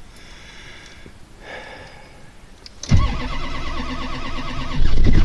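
Starter cranking a cold 2003 Ford F-350's 6.0 Power Stroke diesel at 6 degrees with no block heater plugged in; the cranking begins suddenly about three seconds in with an even, rhythmic churn and grows louder near the end. It is a hard cold start: the engine is not catching.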